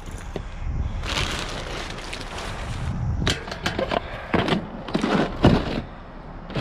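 Hands rummaging through junk in a metal dumpster: plastic trash bags and cardboard rustle, then a run of sharp clatters and knocks as loose items are shifted, the loudest about five seconds in.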